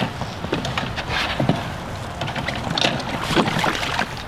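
Low wind rumble on the microphone in a small open boat, with scattered knocks and clicks from handling the rod, line and boat.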